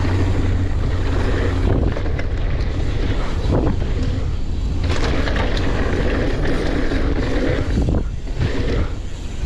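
Wind buffeting a camera microphone on a mountain bike ride: a loud, steady low rumble that starts suddenly and dips briefly about eight seconds in.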